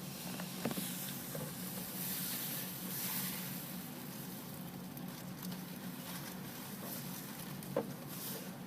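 A soft, steady pattering hiss over a low hum, with two faint ticks, one near the start and one near the end.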